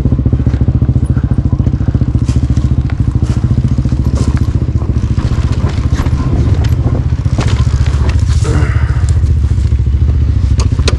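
Beta Xtrainer two-stroke dirt bike engine running at a fairly steady throttle while riding, its fast exhaust pulse dominating, with scattered knocks and clatter over rough ground.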